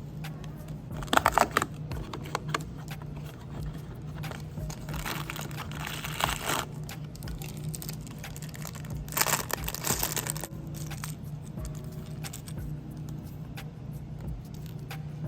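Lego packaging crinkling and rustling in three short bursts: about a second in, around five to six seconds, and around nine to ten seconds, over a steady low hum.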